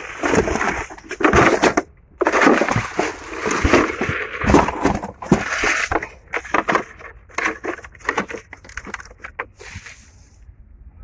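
Irregular scuffing and rustling as someone moves through a strawberry field, with footsteps in wet mud. It stops about a second before the end.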